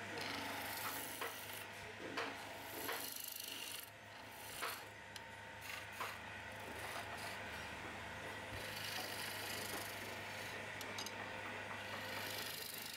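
Hand chisel cutting a spinning wooden table-leg blank on a wood lathe: a continuous rasping, scraping cut over a low steady hum, with a few sharp ticks in the first half as the tool edge catches the wood.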